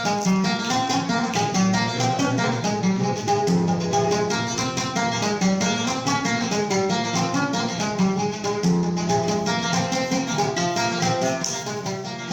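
Instrumental interlude between sung verses: a plucked string instrument playing a quick, busy melody of short notes, with no singing.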